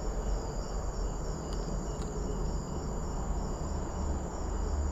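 Night insects chirring steadily in several high, even tones, over a low rumble.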